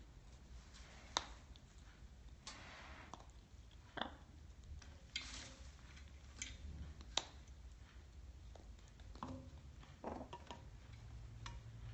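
Blue-and-gold macaw on its perch, with scattered soft clicks and taps and a few short scraping rustles as it shifts about and dips its beak into its food cup. Quiet overall, over a low room hum.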